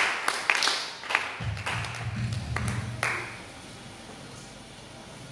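A small group of people clapping, the claps thinning out to a few scattered ones and stopping about three seconds in. A low steady hum comes in about a second and a half in and stays under the fading claps.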